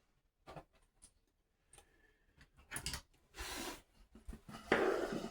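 Scattered small clicks and rubbing or rustling noises, with a longer, louder rustle near the end.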